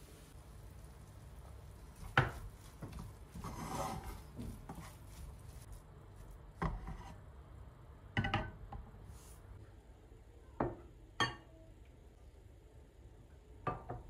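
Wooden spatula stirring and scraping minced-meat filling in a nonstick frying pan, with several sharp knocks of wood and pan against each other and the stove.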